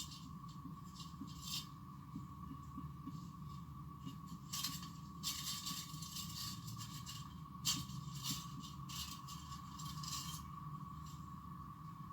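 Scattered rubbing and scraping handling noises of a phone and its plastic accessories, with a sharp click about two-thirds of the way through. Under them runs a steady low hum and a thin whine.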